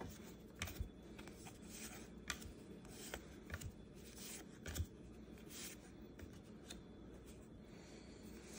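Topps 206 baseball cards being flipped through by hand, each front card slid to the back of the stack: faint rustles and soft clicks at irregular intervals.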